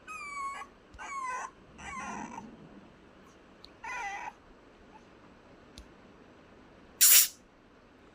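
Puppy whining: four short, high-pitched cries in the first four seconds. A brief, loud hissing noise comes about seven seconds in.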